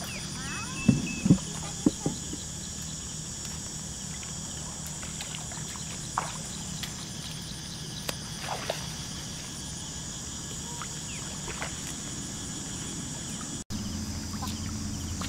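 Steady outdoor ambience of a flooded rice field: a high, even insect-like drone with a low hum under it. A few short knocks come about a second in, and fainter ticks follow later.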